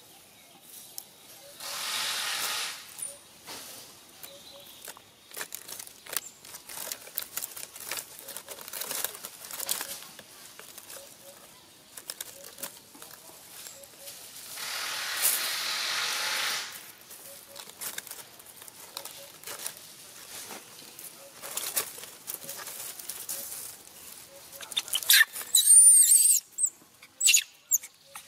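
Dry leaf litter and twigs rustling and crackling, with two longer spells of rustling about two seconds in and around fifteen seconds in. Near the end come a few loud, high squeals that waver in pitch, from an infant macaque.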